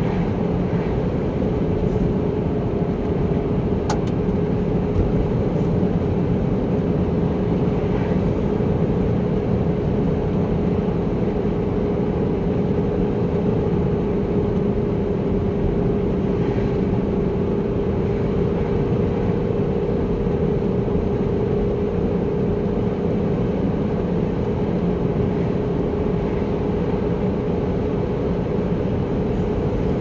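Car driving at a steady cruising speed, heard from inside the cabin: a constant hum of engine and tyres on the road with a steady low drone.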